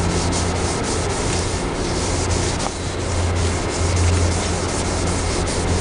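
A sponge scrubbing polish over a plastic car headlight lens, a continuous rubbing noise.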